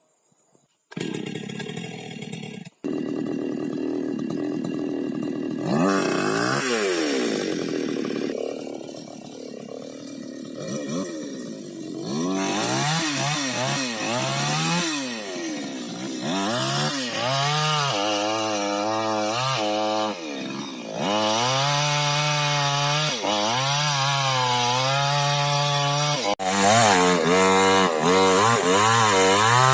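Chainsaw cutting wood to shape a wooden boat's frame ribs, starting about a second in, its engine pitch rising and falling again and again as it bites into and eases off the timber.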